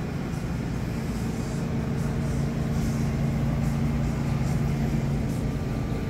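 Steady low hum and air noise of a supermarket's refrigerated drink coolers and ventilation, with a droning tone coming in about a second in.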